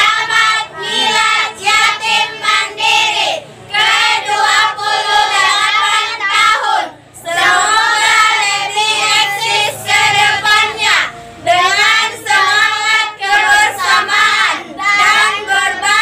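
A group of children and women singing together in unison, in phrases with short breaks between lines.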